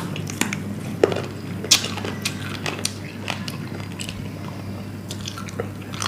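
Eating at a table: biting and chewing spicy grilled chicken wings, with scattered short clicks and clinks of dishes and cutlery over a steady low hum.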